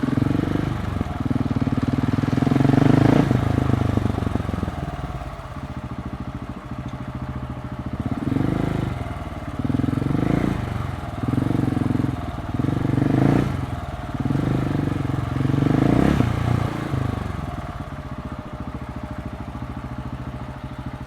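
KTM 690 SMC's single-cylinder engine through an Akrapovic exhaust, running at low speed with a series of short throttle openings, then settling to a steadier, quieter run near the end.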